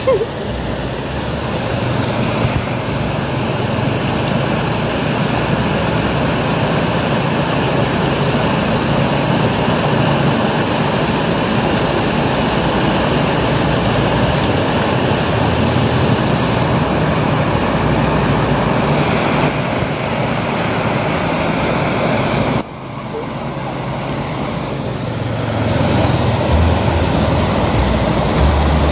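Steady rush of water pouring through a dam outlet into the river. About three-quarters of the way through it drops suddenly, then builds back up.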